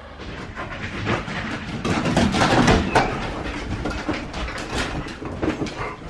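ILIFE A8 robot vacuum cleaner running across wooden floorboards: a steady whirring clatter dotted with many sharp clicks and rattles, loudest about two to three seconds in.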